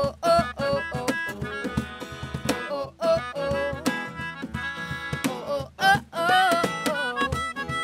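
Live acoustic band: a woman singing over strummed acoustic guitar and a cajon beat.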